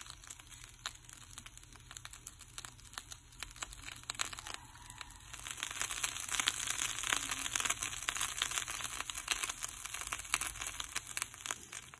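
Bread sizzling in oil in a hot ridged grill pan: a steady crackle of dense little pops, growing louder about five seconds in and stopping suddenly near the end.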